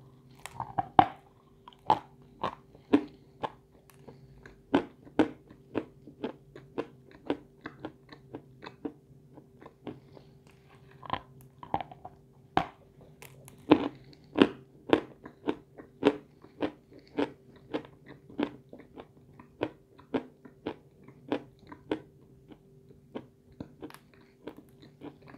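A lump of edible chalk being bitten and chewed close to the microphone: a long run of sharp, irregular crunches, about one or two a second.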